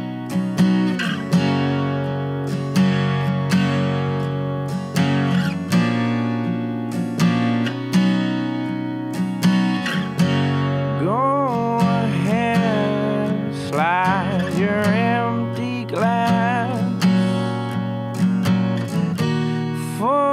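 Acoustic guitar strummed in a steady rhythm; a man's singing voice comes in over it about halfway through.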